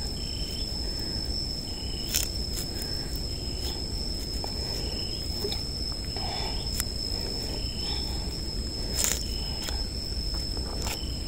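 Insects keep up a steady high-pitched whine, with short chirps about once a second, over the low rustle of a wet gill net being hauled out of the water. A few sharp clicks come from the net and hands, the clearest about two seconds in and near the end.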